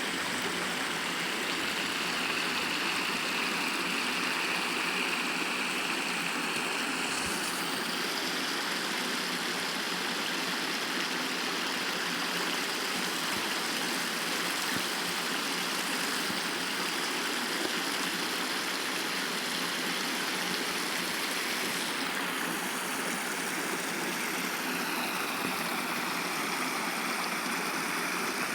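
Running water of a stream, a steady even rush with no breaks.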